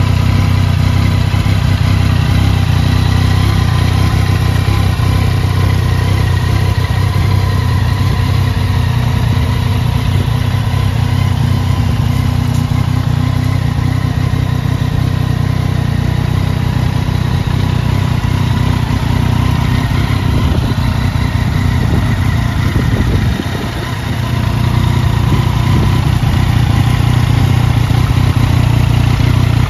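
Yamaha MT-09 three-cylinder engine idling steadily through an aftermarket Lextek silencer. The level dips briefly once, late on.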